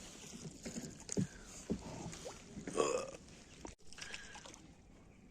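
A small rowed boat on the lake: scattered paddle strokes, knocks and water gurgling against the hull, with the strongest gurgle a little under three seconds in.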